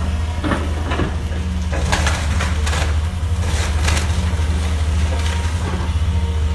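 A house being demolished by a heavy machine: a steady low engine hum, with repeated sharp cracks and crunches of breaking wood and debris.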